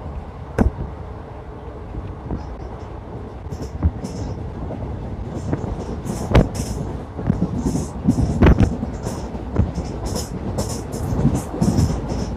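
Passenger train running on the track: a steady low rumble with a few sharp clacks from the wheels.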